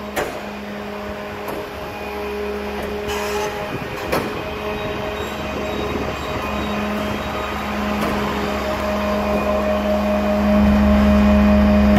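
Walking floor trailer unloading, with the truck's engine running to power the moving floor slats. It makes a steady hum with a droning tone that gets louder near the end, and two sharp clicks, one right at the start and one about four seconds in.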